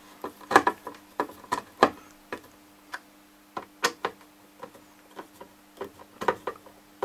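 Screwdriver tightening screws into the plastic underside of a Bose SoundDock Series 1: irregular light clicks and ticks as the tip seats and turns in the screw heads.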